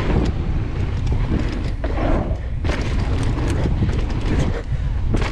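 Wind buffeting the microphone with a heavy low rumble during a downhill mountain-bike run, broken by several sharp knocks and rattles from the bike over rough ground.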